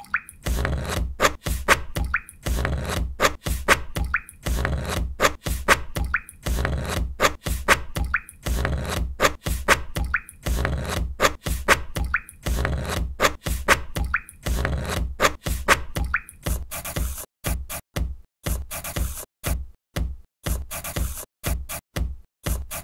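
Electronic music track with a steady beat and bass, built from chopped recordings of watercolour painting sounds such as brush strokes and water drips. About two-thirds of the way through the bass drops out, leaving short stuttering clips with brief gaps between them.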